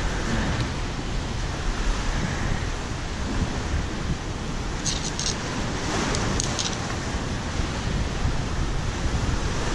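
Steady rushing outdoor noise, heavy in the low end, with a few brief high crackles about five and six seconds in.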